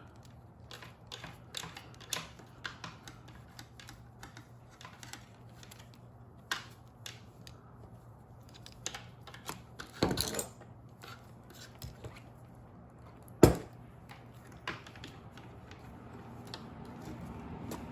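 Scattered small clicks and rattles of 12-gauge wires and a plastic wire nut being handled and twisted on, with one sharper, louder click about thirteen and a half seconds in.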